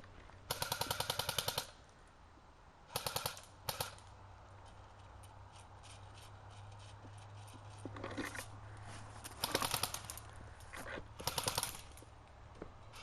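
Airsoft electric guns firing full-auto bursts, rapid evenly spaced clicking shots; about six bursts, the longest about a second near the start, others shorter and spread through.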